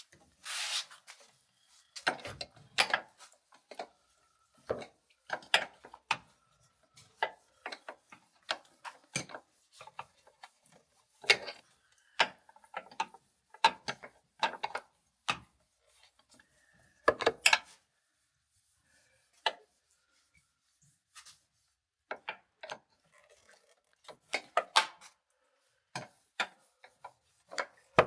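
Hand tools working on metal fittings: irregular clicks, clinks and short scraping sounds, with a quiet pause a little past the middle.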